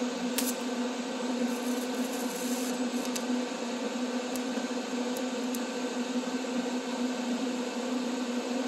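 TIG welding arc buzzing steadily as filler rod is fed into a sheet-steel seam, a constant electrical hum.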